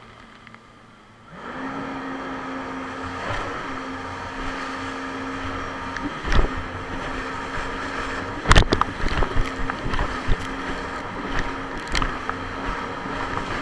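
Jet ski engine running at speed with a steady drone that comes up about a second and a half in. Sharp thumps and splashes sound as the craft slams across the waves, the loudest about six and eight and a half seconds in.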